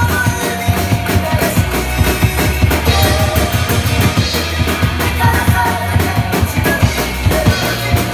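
Tama acoustic drum kit played hard and fast, with dense kick, snare and cymbal hits, over a loud rock backing track with a steady bass line and melody.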